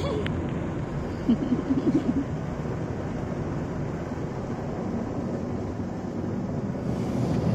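Automatic car wash cloth brushes and water beating against the car, heard from inside the cabin as a steady rushing rumble.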